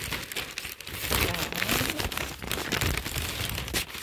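Plastic wrapping crinkling and rustling irregularly as a packaged bath towel is handled and pulled from a cardboard box.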